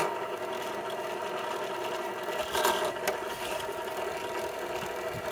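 Bench drill press motor running steadily with a constant hum while a pilot hole is drilled in a length of white pool pipe, with a brief louder moment about two and a half seconds in.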